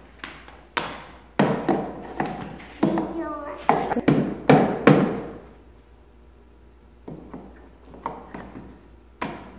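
Hard plastic parts of a ride-on toy Jeep being knocked and snapped into place: a run of sharp knocks over the first five seconds, then a few lighter ones near the end.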